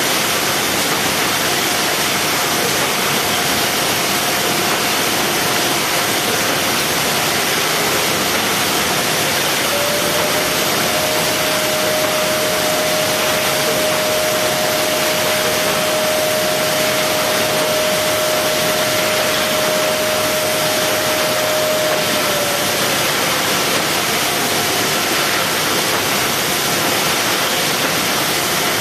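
Steady, loud machine noise from a box-palletizing robot line and its conveyors. A steady motor whine comes in about a third of the way through, holds for around thirteen seconds, then drops away.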